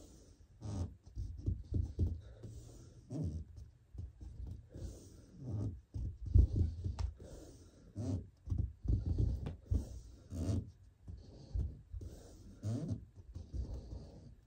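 A person breathing hard under exertion, with forceful, rough exhales and inhales about every one to two seconds while pressing through handstand push-ups.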